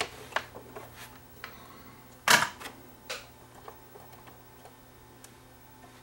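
Small clicks and taps of hands working a circuit board and soldering iron, with one louder, short clatter a little over two seconds in.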